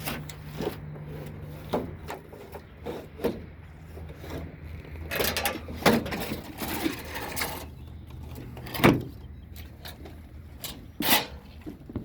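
Irregular knocks and clatter, with a longer scraping rub in the middle and a few sharper knocks, the loudest about 9 seconds in.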